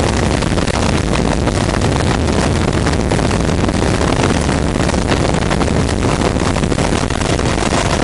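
Helicopter's rotor and turbine engine running, loud and steady.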